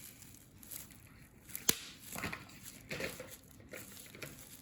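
Plastic bubble wrap crinkling and rustling as it is pressed and dabbed onto paper with paint, in a few irregular strokes, with one sharp click about a second and a half in.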